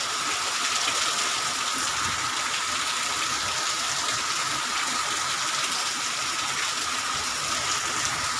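Heavy rain pouring down in a steady, unbroken hiss, driven by strong wind.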